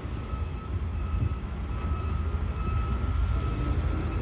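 Steady low rumble of a vehicle running, with a faint steady whine above it.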